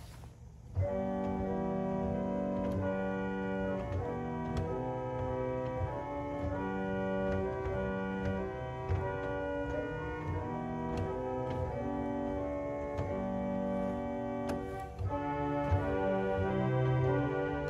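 1890 Roques pipe organ playing sustained chords on the manuals, starting about a second in, with stops being added in a crescendo toward the full organ. It grows fuller and louder from about 15 seconds in.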